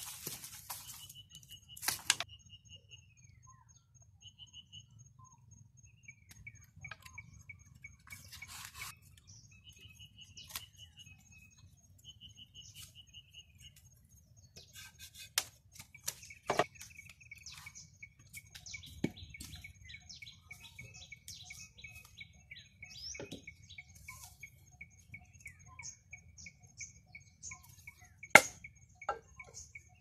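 Small birds chirping and trilling, with a handful of sharp knocks from a tool striking bamboo and wood, the loudest near the end.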